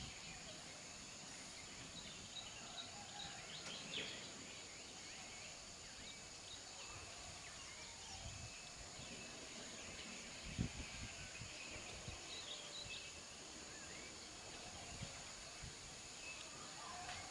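Faint outdoor ambience: scattered bird chirps over a steady hiss, with a few short low thumps, the strongest about ten seconds in.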